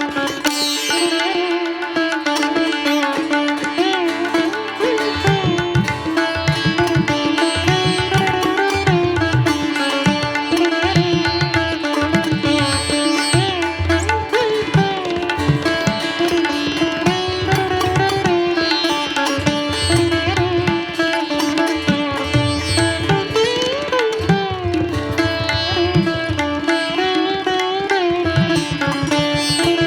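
Instrumental background music: a plucked-string melody in an Indian classical style, with low hand-drum strokes joining about five seconds in.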